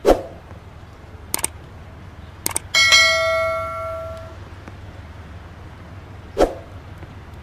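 Subscribe-button animation sound effects: a swoosh, a click, a double click, then a single bell ding that rings out for about a second and a half, and a second swoosh near the end.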